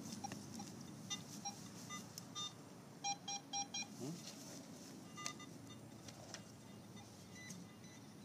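Metal detector beeping in short electronic tones over a target: a few single beeps, then a quick run of four about three seconds in, and a few fainter ones later.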